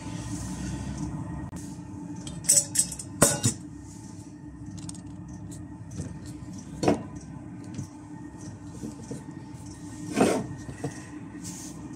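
Sharp metal clinks of a cooking pot and spoon being handled on a canister gas stove: a few close together about two and a half to three and a half seconds in, then single ones near seven and ten seconds. Under them runs a steady low hum from a diesel heater.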